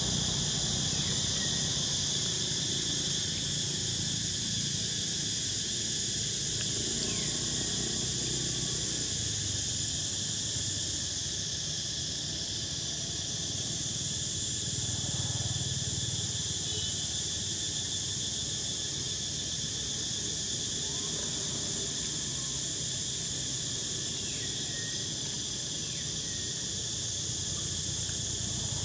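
Steady, unbroken high-pitched chorus of insects, with a few faint short chirps now and then.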